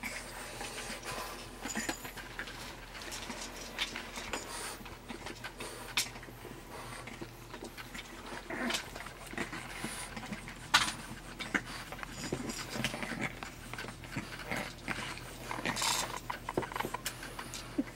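French bulldog puppies playing with plastic baby toys: the puppies' breathing and mouthing mixed with irregular small clicks and rattles of the toys, a few of them sharper.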